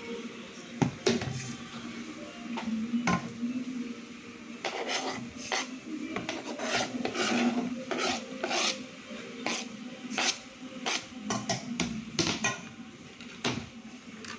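Chopped ginger and garlic being scraped off a plastic cutting board into a pot with a utensil: a string of short scrapes and knocks against the board and pot rim, thickest in the second half, over a low steady hum.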